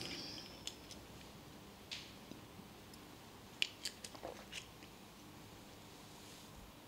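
Quiet room tone with a few faint clicks and handling noises as a person takes a drink of water.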